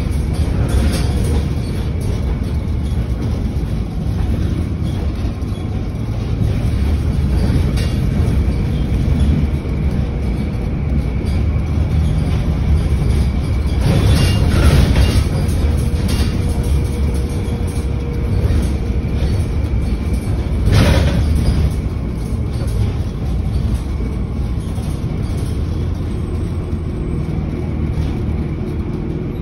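Cabin noise inside a moving city transit bus: a steady low rumble from the engine and tyres with rattling, swelling louder twice, about halfway through and again a few seconds later.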